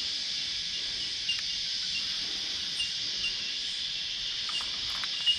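A steady, high-pitched chorus of cicadas shrilling, with small repeated chirps over it and a sharp click near the end.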